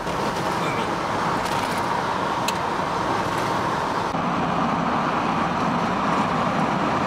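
Steady road noise of a moving cab-over camper: even tyre and wind rush with no change in pace.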